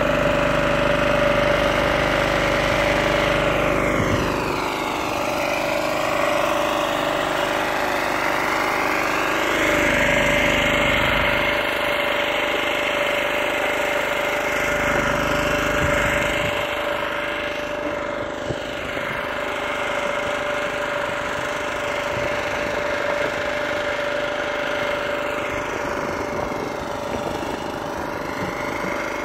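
Steady running hum of a portable generator and a hot-wedge welding machine sealing geomembrane liner seams, with a constant whine over it.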